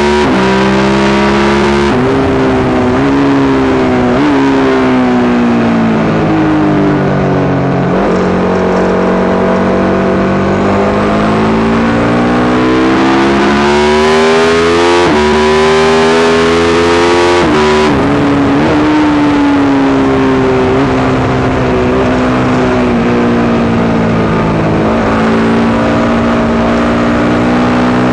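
Yamaha YZ450 single-cylinder four-stroke engine in a supermono race bike running hard, its note rising and falling over and over with throttle and gear changes, with several brief breaks in the note. The owner reports a persistent misfire in this engine that gets worse after a couple of laps.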